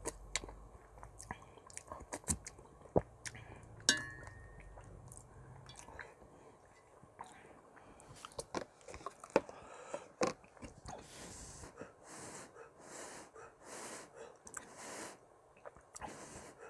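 Close-up eating sounds: chewing and slurping stew from a wooden spoon, with sharp clicks of the spoon against a steel pot. In the last few seconds there is a string of short breathy puffs, a little more than one a second.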